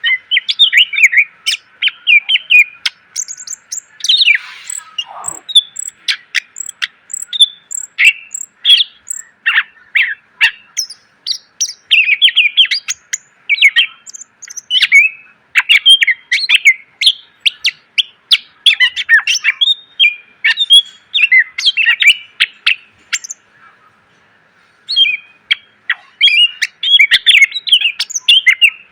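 Green leafbird (cucak ijo) singing a fast, varied song of sharp chirps and short trills, packed with fill phrases. There is a long falling whistle about four seconds in and a brief pause near the end.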